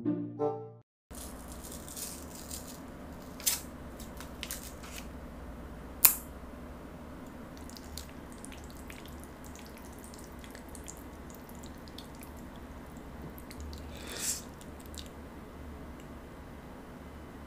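A person eating jajangmyeon noodles with chopsticks as quietly as possible, close to a sensitive microphone: soft scattered clicks and small wet mouth sounds, sharper clicks about three and a half and six seconds in, and a brief louder noise about fourteen seconds in, over a steady low hum.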